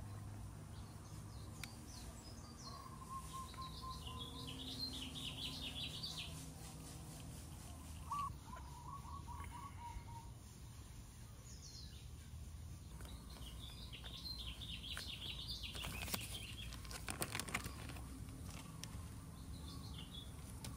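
Birds chirping and calling over a low, steady background hum, with a short run of sharp clicks about three-quarters of the way through.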